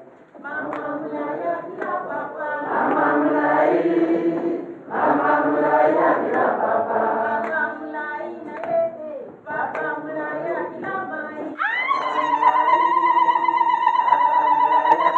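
A group of people singing together without instruments, in phrases with short breaks. About twelve seconds in, a high tone slides up and is held steady, louder than the singing.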